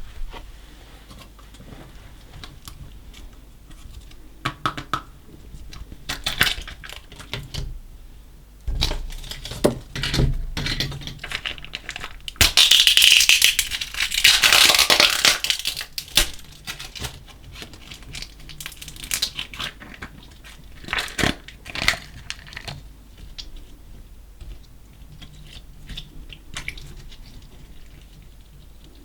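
Slime mixed with small coloured particles being squished and worked by hand: sticky crackles and clicks, with a louder, denser run of crackling about halfway through.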